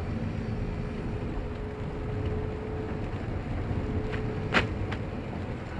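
Car driving on a rain-soaked highway, heard from inside the cabin: a steady rumble and hiss of tyres on water and rain on the car, with a faint steady tone and one sharp click about four and a half seconds in.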